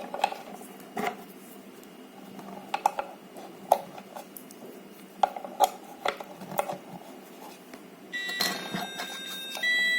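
AA batteries being fitted into a plastic LED cube alarm clock: a series of small clicks and knocks. About eight seconds in, the clock powers up and plays an electronic beeping tune whose notes step up and down in pitch.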